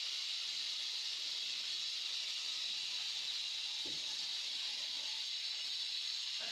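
Steady, even hiss, with one faint dull knock about four seconds in.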